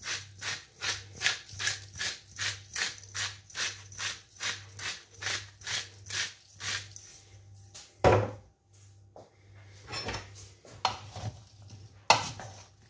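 Coarse sea salt crunching as it is added over a steel bowl of diced vegetables: a steady clicking about four times a second for some seven seconds. After that come a few louder knocks and rustles as hands toss the vegetables in the bowl.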